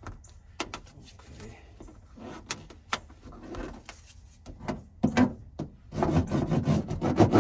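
Sound-deadening mat being pressed and rubbed down onto the car's floor: a few sharp clicks, then about five seconds in a loud, dense rubbing and scraping.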